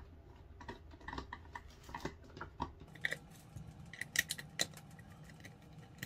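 Phillips screwdriver backing small stainless steel screws out of a plastic shell: a run of light, irregular clicks and ticks, a few sharper ones in the second half.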